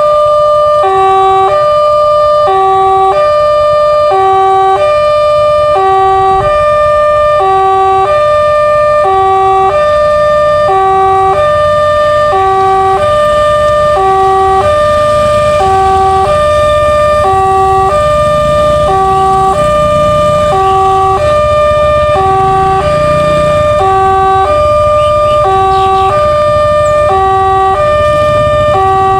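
Railway level-crossing warning siren sounding a steady two-tone alarm, alternating between a lower and a higher tone, each held a little under a second. Traffic rumbles low underneath.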